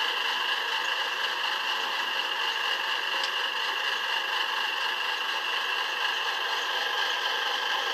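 Lenz O gauge V20 model locomotive's DCC sound decoder playing a steady diesel engine running sound through its small onboard speaker, with no deep bass.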